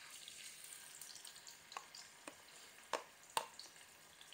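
Marinated salmon pieces sizzling softly in hot olive oil in a frying pan, with light crackling and a few sharp pops. The loudest two pops come close together a little after halfway through.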